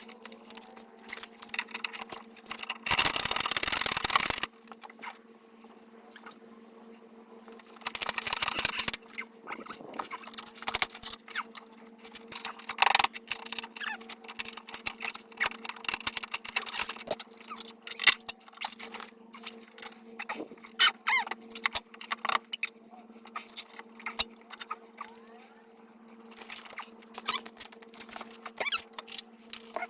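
Hands-on work on a snowmobile's rear suspension: scattered clicks, knocks and scrapes of tools and metal parts being handled, with two loud bursts of hiss-like noise, one about three seconds in lasting about a second and a half and a shorter one around eight seconds. A steady low hum runs underneath.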